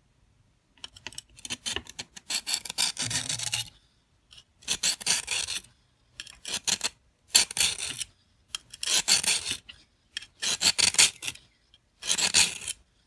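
A steel pocket-knife blade drawn along an oiled coarse sharpening stone in a guided angle kit, from handle to tip. About seven separate rasping, hissing strokes with short pauses between them; the first is the longest.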